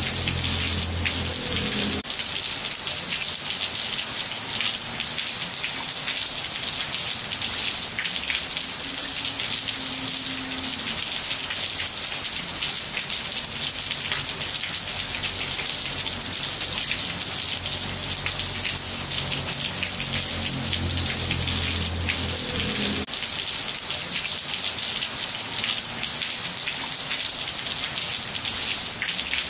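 Rain falling steadily on a wet tiled floor, a dense patter of drops. A low hum in the background comes and goes twice.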